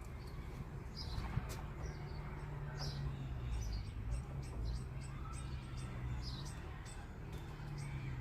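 A bird chirping, short high calls repeated every second or two, over a steady low hum.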